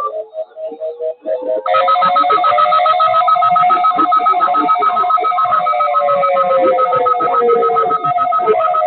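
Tornado warning sirens sounding in a statewide drill. One tone rises slowly in pitch and later falls, and a rapidly pulsing two-note tone comes in about two seconds in and stops near the end.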